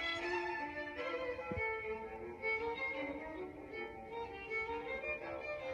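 Violin music: a melody of held notes that changes pitch every fraction of a second.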